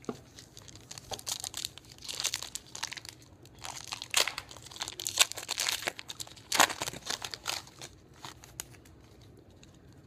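Wrapper of a Topps Finest baseball card pack crinkling as it is torn open and crumpled in the hands. The crackling is irregular and dies down near the end.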